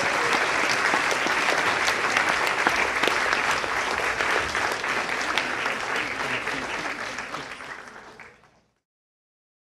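Audience applauding, a dense clapping that fades away and ends in silence about eight and a half seconds in.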